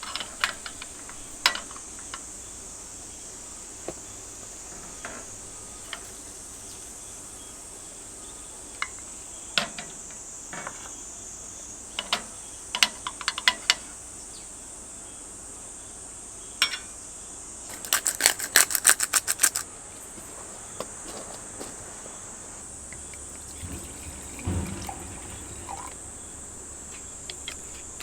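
Steady high-pitched drone of summer insects, with scattered sharp clicks and knocks and a quick rattling run of clicks about two-thirds of the way through.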